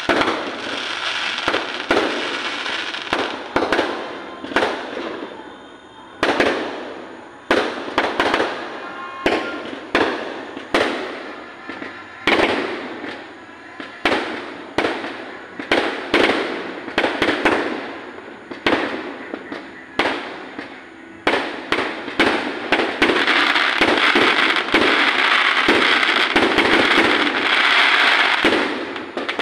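Aerial fireworks going off in a rapid series of sharp bangs, each dying away quickly. About three quarters of the way in, the bursts come so thick that they merge into a continuous, dense crackling barrage.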